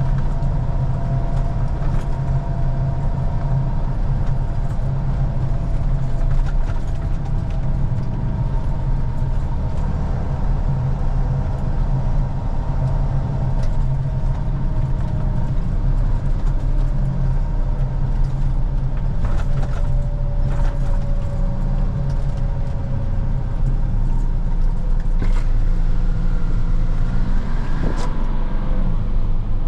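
Peterbilt rollback tow truck's engine running steadily as the truck drives, a constant low drone.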